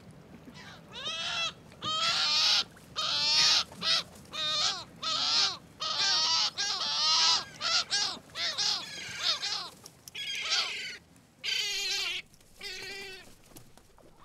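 Seagulls calling: a rapid run of harsh, repeated squawks, some overlapping, starting about a second in and dying away near the end.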